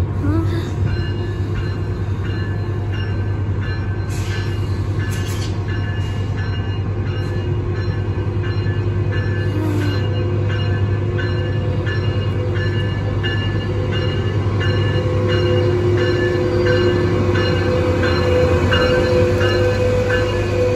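Metrolink diesel locomotive running steadily as its train rolls slowly into the station and past, with a regular ringing about twice a second, typical of the locomotive's bell. Steady squealing tones, typical of brakes or wheels, build in the second half.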